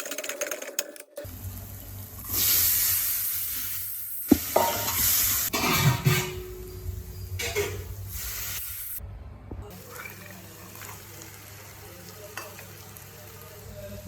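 Potatoes frying in hot oil in a pan: sizzling, loudest in a burst a couple of seconds in, with a utensil stirring and knocking against the pan. The sound breaks off and restarts several times.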